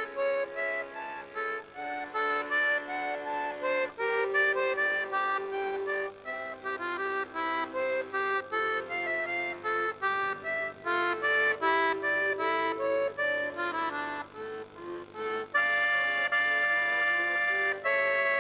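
Piano accordion played solo: a fast run of quick melody notes, then a loud, long held chord about three-quarters of the way through.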